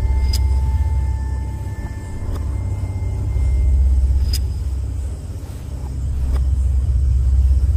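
Horror-film background score: a deep rumbling drone that swells and fades twice, with a sharp tick about every two seconds.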